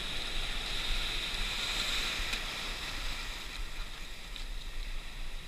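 Surf foaming and washing around a rock, a steady hiss, with a low rumble of wind on the microphone.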